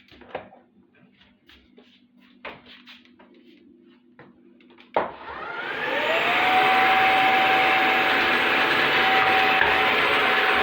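Small handling clicks over a faint low hum, then about five seconds in a click as the Bissell CrossWave OmniForce cordless wet-dry vacuum is switched on with its water feed on. Its motor spins up with a rising whine over about a second and a half, then runs loudly and steadily.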